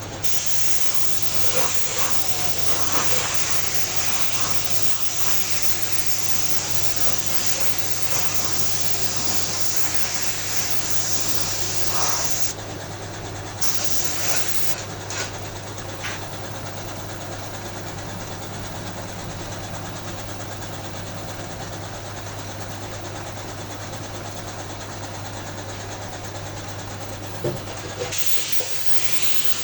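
Compressed-air spray gun painting bike parts: a steady spray hiss that stops and restarts as the trigger is released and pulled, over the continuous low hum of a motor.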